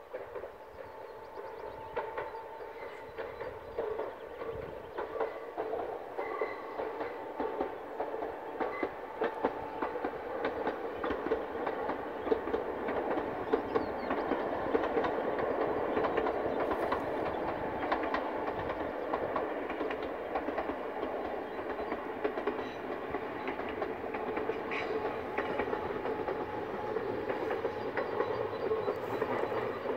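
Koleje Śląskie EN76 Elf electric multiple unit running past on the line, its wheels rumbling and clicking on the rails. The sound swells over the first dozen seconds as the train approaches, then holds steady.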